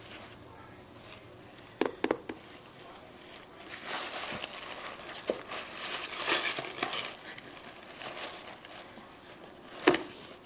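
Cardboard shoe box knocked and scratched by a Bengal cat playing inside it: a few sharp knocks about two seconds in, a stretch of rustling and scratching in the middle, and another knock near the end.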